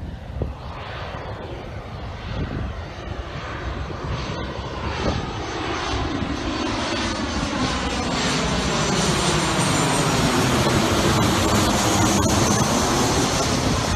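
Boeing 737 jet airliner flying low overhead with its landing gear down. The engine noise grows steadily louder as it approaches, with a slow sweeping, phasing whoosh.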